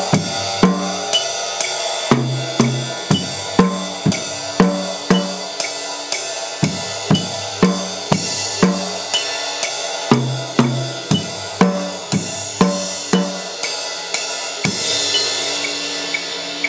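Drum kit played at 120 beats per minute: a beginner's four-beat rhythm of bass drum and snare drum on the beats under a steady wash of cymbal, about two strokes a second. About fifteen seconds in it ends on a cymbal crash that rings on.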